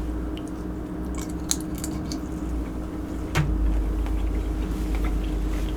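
Scattered small clicks and crackles of seafood being handled and eaten at the table, with one sharper click about three and a half seconds in, over a steady low hum.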